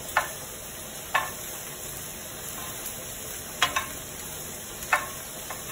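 Food sizzling steadily in a hot pan on the stove, with several sharp clinks of a utensil against cookware.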